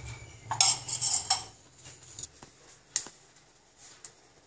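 Metal spoon scraping and clinking against a small steel cup as sesame oil is scraped out of it into a pot, with a few scratchy strokes in the first second and a half, then three light clicks.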